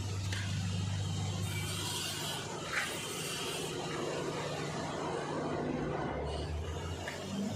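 An engine, likely the concrete pump's, runs steadily with a low hum. There is a single short knock about three seconds in.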